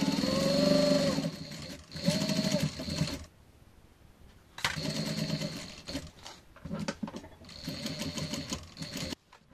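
Electric sewing machine stitching herringbone tape onto a fabric bag in short runs, its motor speeding up and slowing at each start and stop, with a quiet pause about three seconds in.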